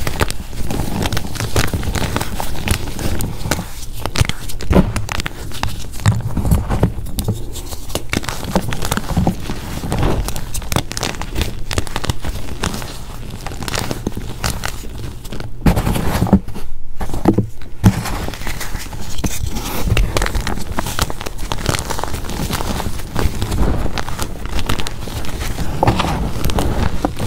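Hands crushing and crumbling blocks of Z Athletic gym chalk coated in holi powder: a dense, steady run of crunching and crackling as the hard chalk chunks break apart and grind together.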